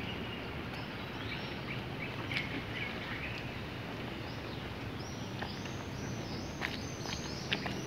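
Outdoor background noise with small birds chirping: a few short high chirps early on, then a run of them from about five seconds in. There are also soft footsteps of a person jogging and walking on asphalt.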